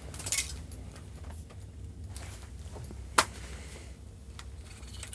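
A few sharp clicks and clinks from a spinning rod and reel being handled: a quick cluster about half a second in and a single sharp click about three seconds in, over a low steady hum.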